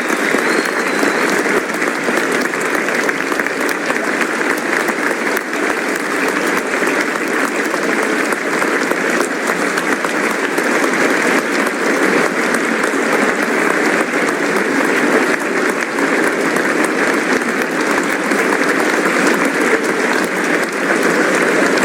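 Sustained studio-audience applause, a dense, steady wash of many people clapping that holds at an even level without breaking.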